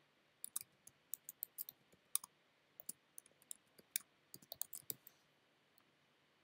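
Typing on a computer keyboard: a run of faint, quick, uneven key clicks that stops about five seconds in.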